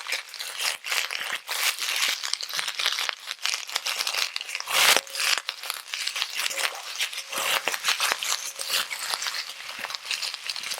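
Freshly washed carrots and peas sizzling and crackling in hot mustard oil in a pan, with a single louder knock about five seconds in.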